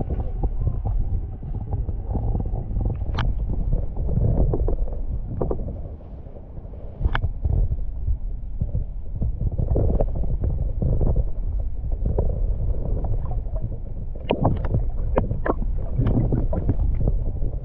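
Kayak out on the water: a continuous muffled low rumble of water and wind, with scattered short knocks and splashes of paddling.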